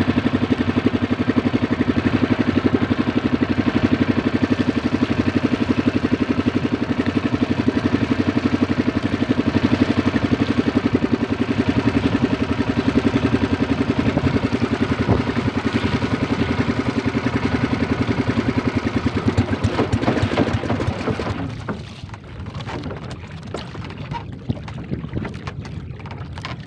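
Small engine of a motorized outrigger fishing boat running steadily with a fast, even putter, then cut off about 21 seconds in, leaving wind noise on the microphone.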